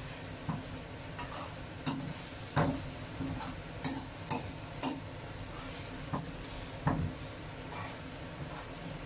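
Metal ladle knocking and scraping against a wok while stir-frying cubes of sweet potato jelly, about a dozen irregular clinks over a steady sizzle of frying.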